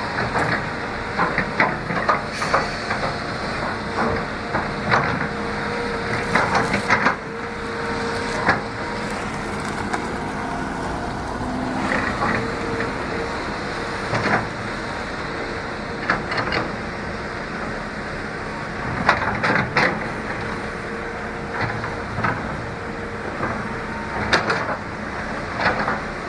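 Excavator demolishing a house: irregular cracking and crunching of breaking wood and debris over the machine's steady engine.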